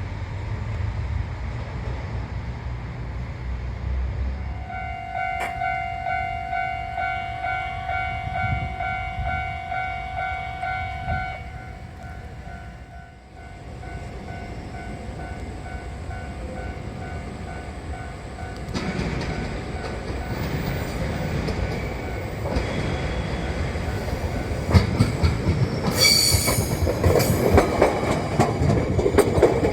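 Japanese railway level-crossing warning bell ringing in a steady repeat about twice a second. Then a JR train passing over the crossing, its rumble and wheel clatter growing louder in the last third, with a brief shrill high sound near the end.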